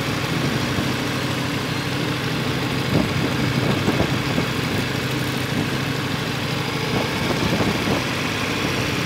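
Motorcycle engine running at low, steady revs, with a few light knocks about three, four and seven seconds in.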